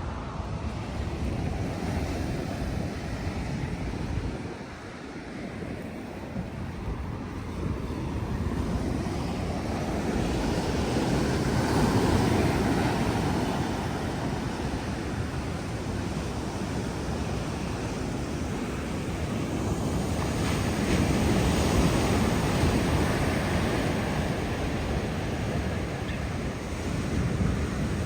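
Atlantic Ocean surf breaking and washing ashore, swelling and easing in slow surges, with wind buffeting the microphone. A thin, faint high tone joins about two-thirds of the way in.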